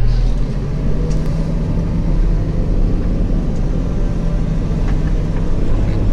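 A farm vehicle's engine running steadily at an even speed, a constant low drone.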